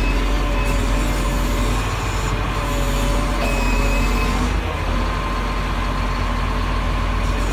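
Caterpillar 160M motor grader's diesel engine running steadily, a deep rumble with a thin steady whine over it.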